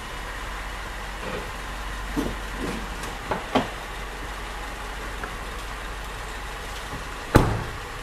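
Mercedes-Benz car engine idling steadily, with no abnormal noise, after a mechanic lubricated it; the rubber drive belt is said to be worn. A few soft knocks a couple of seconds in, and a car door shuts with a loud thump near the end.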